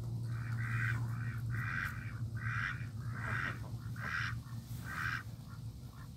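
Duck quacking in a run of about eight quacks, roughly one and a half a second.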